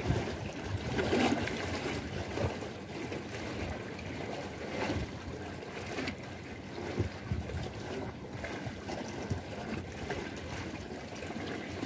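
Churning white water washing and splashing against a concrete wall: a steady rushing wash broken by small irregular splashes.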